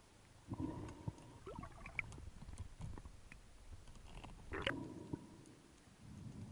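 Underwater handling noise of a speargun with a speared parore on its shaft, heard through a submerged camera: faint clicks, knocks and rustling, with two louder knocks, about half a second in and about four and a half seconds in, each followed by a brief steady tone.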